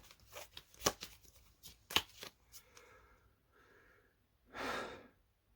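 Pokémon trading cards being handled and flipped through by hand: scattered sharp clicks and snaps of card stock, the loudest about a second and two seconds in, then a brief sliding rush near the end.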